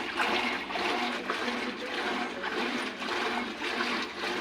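Colormaq 12 kg washing machine agitating, with water and clothes churning and sloshing in the tub. With its gear, bearing and seal replaced, the mechanism runs without its earlier loud noise.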